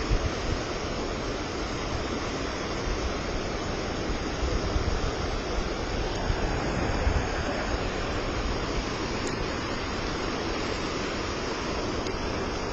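Rushing river rapids making a steady wash of white-water noise, with occasional low wind buffets on the microphone.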